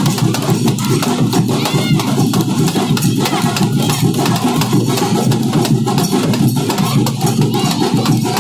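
Loud drum-led music with fast, dense percussion strokes that keep going without a break.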